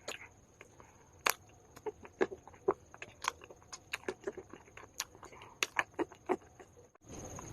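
Edible calabar clay being crunched and chewed close to the microphone: irregular sharp crackles and snaps, about two or three a second. Near the end the crunching stops abruptly and a steady hiss takes over.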